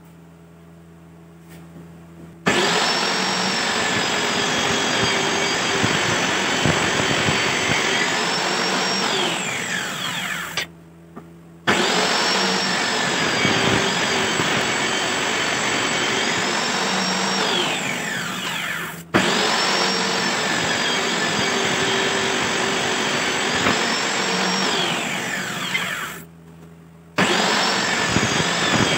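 Table saw running and ripping wooden boards fed along its fence, the motor's pitch sagging and recovering as the blade takes the cut. Twice it winds down with a falling whine and goes briefly quiet, then is running again.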